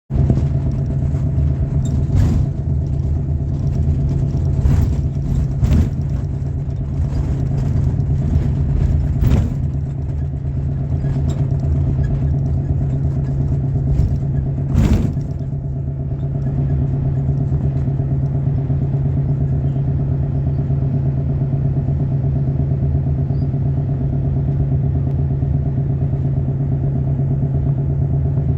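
An engine running steadily at one speed, a constant hum, with a few sharp knocks or clatters in the first half.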